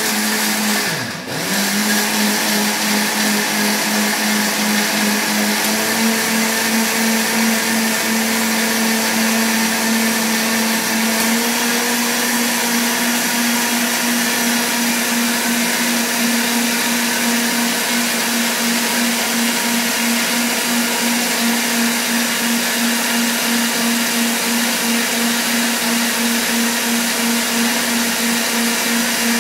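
Panasonic mixer grinder with a stainless steel jar running at speed, grinding cooked onion, tomato, cashews, garlic and ginger with a little water into a paste. The motor dips briefly about a second in, then runs steadily, its hum stepping up slightly in pitch twice.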